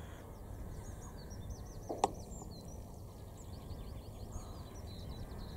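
Small birds singing in quick, high chirps over a low, steady rumble, with a single sharp click about two seconds in.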